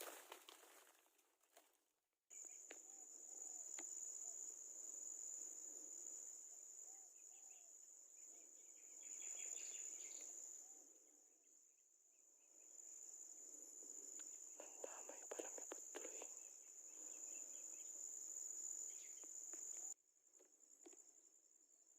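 Insects outdoors making a steady high-pitched drone over faint background hiss; the drone starts about two seconds in and drops away suddenly near the end.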